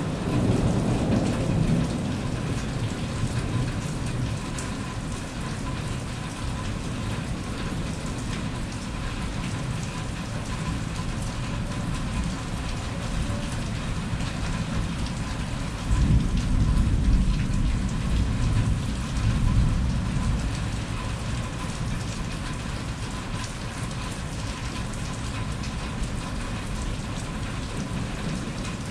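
Steady rain pouring down in a thunderstorm. A little past halfway, a low rumble of thunder comes in suddenly, swells for a few seconds and fades.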